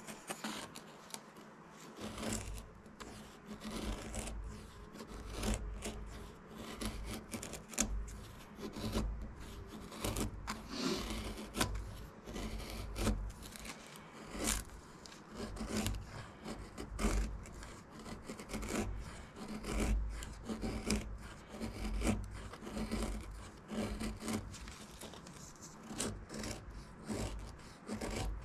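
Folding knife blade shaving and carving wood in repeated scraping strokes, about one every second or so, starting about two seconds in.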